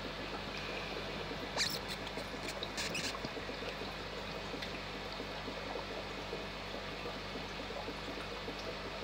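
Steady bubbling and trickling of aquarium water, with a few sharp clicks between about one and a half and three seconds in.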